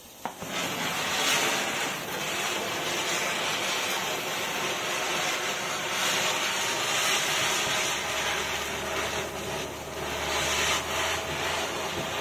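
Standard Fireworks Zamin Chakkar Super Deluxe ground spinner catching a quarter second in and then spinning, giving off a steady hiss of burning composition and sparks.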